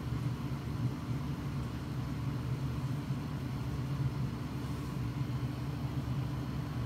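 A steady low hum that does not change, with no distinct knocks or clicks.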